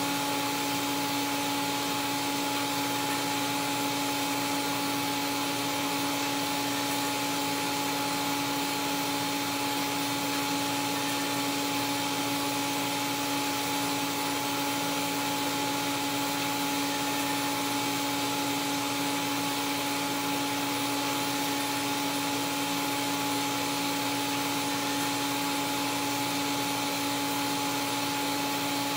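Steady hiss of a TIG arc during a root pass on carbon steel pipe, under a constant machine hum from the running welding equipment.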